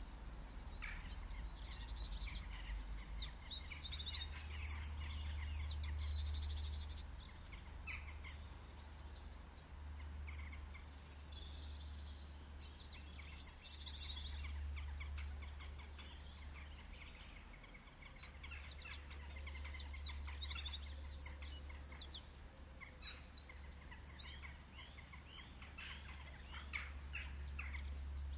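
Small songbirds chirping and singing in repeated bouts of rapid high trills, over a steady low hum.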